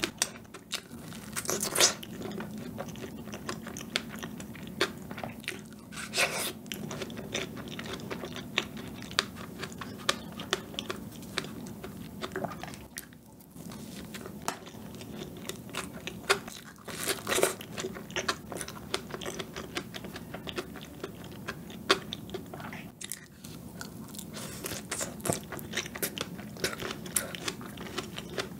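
Close-miked eating: biting into a fresh strawberry and a piece of chocolate cream cake, with steady wet chewing and crunching and a few sharper bites along the way.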